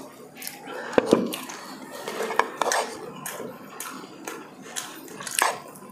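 Close-up eating sounds from pork rib caldereta: wet chewing and lip smacks, with irregular sharp clicks of a spoon against a plate. The loudest click comes about a second in.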